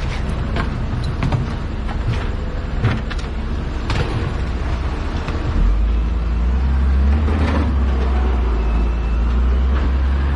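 Heavy construction machine's engine running, with scattered clanks and knocks; the engine rumble rises and gets louder about halfway through.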